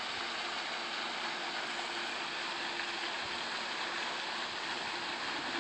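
Steady outdoor background noise: an even rushing hiss with a faint steady hum underneath, unchanging throughout.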